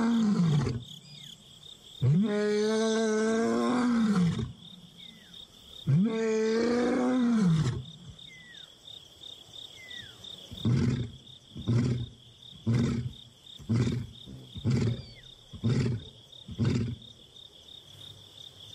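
A young male lion roaring: three long moaning calls of about two seconds each, then a run of seven short grunts about one a second. It is a contact roar, calling repeatedly to find a missing companion.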